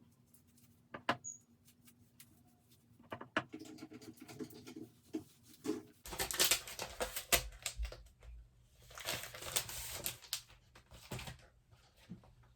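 Handling noises: scattered light clicks and taps, then two longer spells of rustling, starting about six and nine seconds in.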